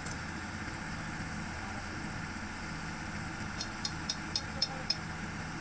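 Old Sumitomo excavator's diesel engine running steadily. A little over halfway through, a quick run of sharp metallic clinks starts, about four a second.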